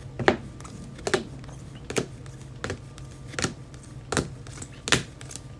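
Trading cards being laid down on a table one after another, a light click about every three-quarters of a second over a steady low hum.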